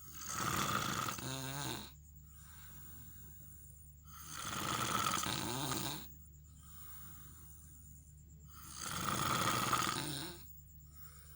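A man snoring loudly in his sleep: three long, rough snores about four and a half seconds apart, with quieter breaths between them.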